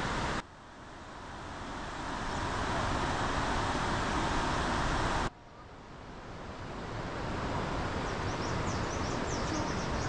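Steady outdoor forest ambience, an even rushing noise that cuts out abruptly twice and fades back in each time, with a few faint high chirps near the end.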